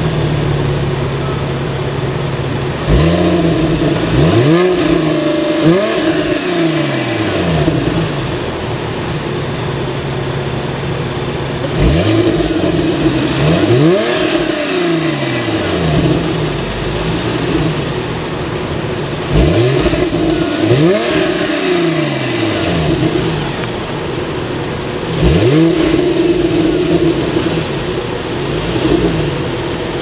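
2011 Porsche 911 Carrera GTS 3.8-litre flat-six, fitted with a Fabspeed X-pipe and with its sport exhaust (PSE) valves closed, revved in quick blips. Four bursts of revs, mostly two blips each, rise and fall back to a steady idle between them, several seconds apart.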